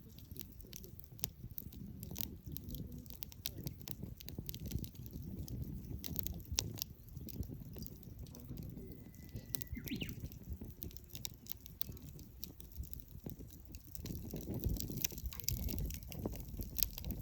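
Wood campfire burning, with irregular sharp crackles and pops over a low steady rumble.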